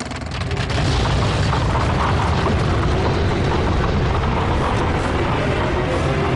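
Cartoon explosion-like sound effect: a sudden loud blast right at the start that runs on as a steady heavy roar with a deep rumble.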